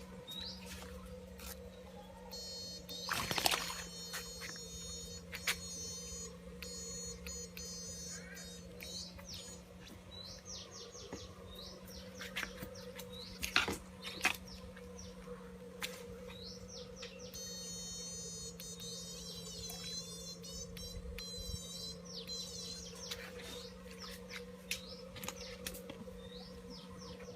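Birds chirping in short repeated falling calls, with two spells of rapid high trilling like insects buzzing, over a steady low hum. A few sharp clicks come and go.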